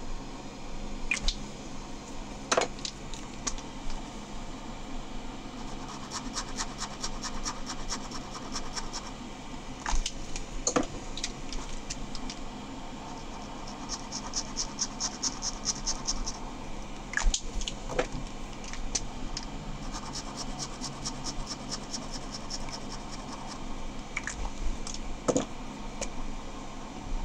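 Metallic POSCA paint marker scribbling back and forth on sketchbook paper: quick, even scratching strokes in several runs, with a few separate sharp taps in between.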